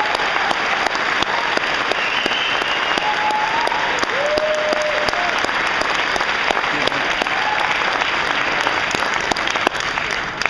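Large audience applauding steadily, with a few short cheers rising above the clapping.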